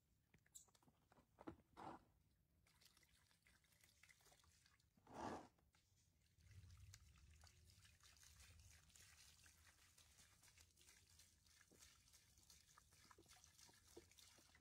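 Near silence: faint room sound with a few soft small noises, the most distinct a brief soft sound about five seconds in, followed by a faint low hum and hiss.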